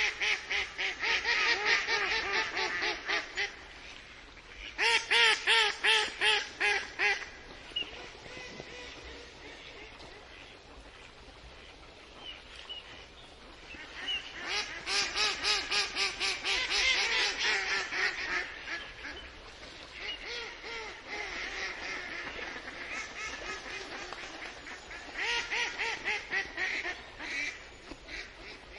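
Several ducks quacking in quick runs of calls, with four loud bouts and quieter quacking between them.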